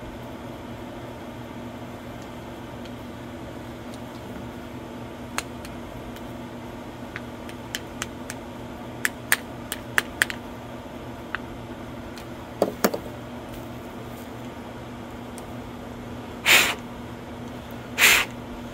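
Small plastic engine part from a push mower being handled and fiddled with: scattered light clicks and taps, a double knock, then two louder short rustling scrapes near the end, over a steady low hum.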